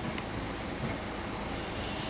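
Mobile crane running steadily while hoisting a steel H-beam: a low rumble with a hiss over it, and one short click about a quarter second in.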